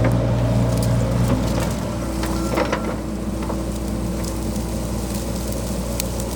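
John Deere 60G compact excavator's diesel engine running steadily under hydraulic load while it digs. The engine note drops a little about a second and a half in. A few short knocks and scrapes from the bucket working the soil come about halfway through.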